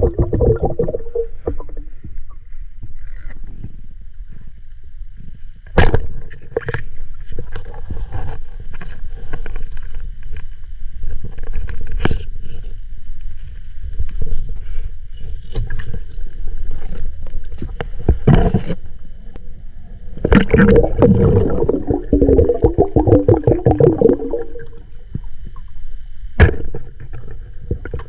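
Water sloshing and gurgling with a steady low rumble, broken by a few sharp knocks. A loud, muffled, pitched sound lasts several seconds near the end.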